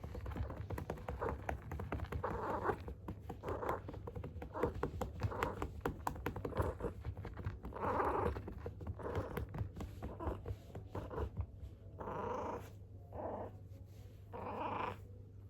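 Calico cat having her rump patted by hand, soft repeated pats about twice a second, while she makes short low vocal sounds. Near the end she gives three longer calls.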